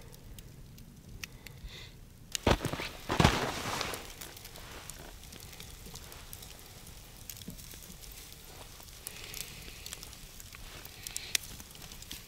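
Wood coals of a campfire crackling and popping with scattered sharp snaps, broken by two loud knocks about two and a half and three seconds in.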